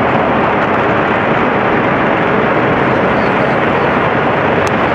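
The nine Merlin engines of a SpaceX Falcon 9 first stage firing together in a static test fire: a loud, steady rushing noise that holds an even level.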